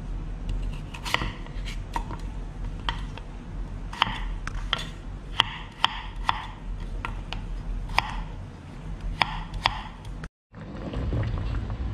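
Chef's knife slicing and dicing peeled potato on a wooden cutting board: irregular sharp knocks of the blade against the board, one to two a second. About ten seconds in, the sound cuts out abruptly and gives way to a steady low hum.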